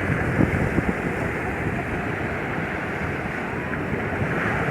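Sea waves washing onto a beach: a steady rushing noise, with wind on the microphone.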